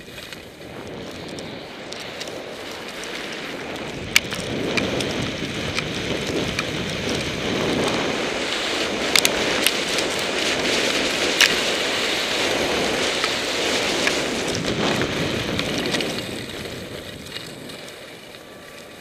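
Skis scraping and hissing over packed snow on a fast descent, with wind rushing over the camera's microphone. It grows louder from about four seconds in and eases off near the end, with a few sharp clicks from the skis.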